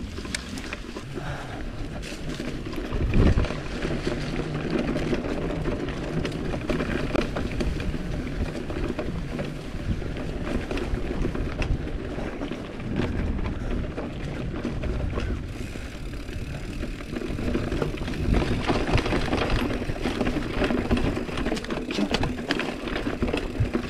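GT Avalanche hardtail mountain bike ridden over a bumpy dirt singletrack: tyres rolling on dirt and the bike rattling with many small clicks, with a heavy knock about three seconds in.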